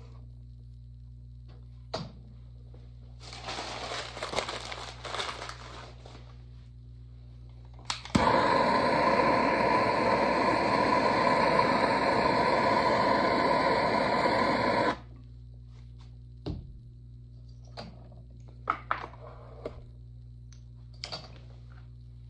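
Handheld gas torch lit with a click, then running with a steady hiss for about seven seconds as its flame dries the clay cup on the spinning wheel, and shut off abruptly. Before it, a trimming tool scrapes clay for a few seconds over the low hum of the potter's wheel motor, and a few light ticks follow near the end.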